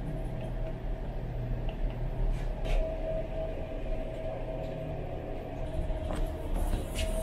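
Steady mechanical hum with a constant mid-pitched tone, and a few faint clicks.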